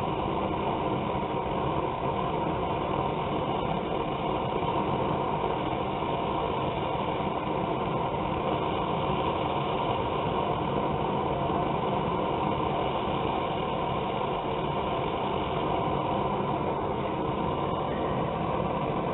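Gas burner of a coffee-can forge running steadily.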